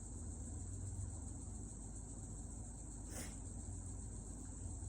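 Steady high-pitched insect chirring, like crickets, with one brief soft scrape about three seconds in.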